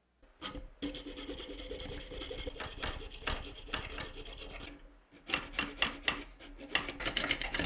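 Hacksaw cutting 5/8-inch square brass bar stock clamped in a bench vise, with back-and-forth rasping strokes and a metallic ringing from the bar underneath. The sawing stops briefly about five seconds in, then resumes.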